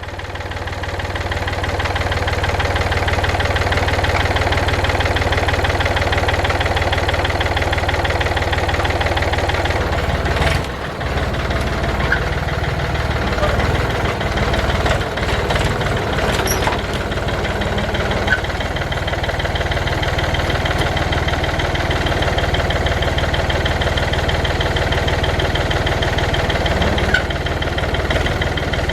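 Tractor engine running at a steady speed, building up over the first few seconds, with a brief dip about ten seconds in and a few light clicks.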